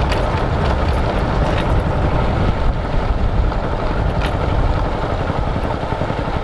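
Motorcycle riding along a dirt track: its engine running steadily under heavy wind rumble on the microphone, with a few sharp knocks about one and a half and four seconds in.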